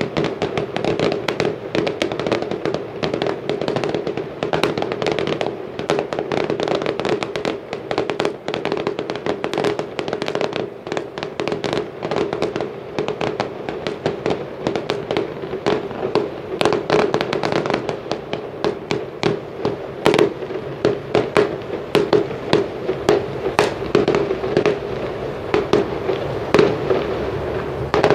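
Aerial fireworks heard from a distance in a rapid, continuous barrage of bangs and crackles, typical of a festival finale. The reports get bigger and more spaced out in the second half.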